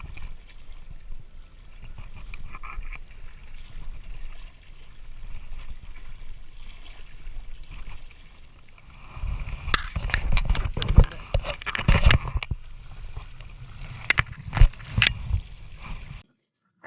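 Wind rumbling on the microphone over water-like noise, then in the second half a run of sharp knocks and clattering with louder rushing noise, ending abruptly when the sound cuts out shortly before the end.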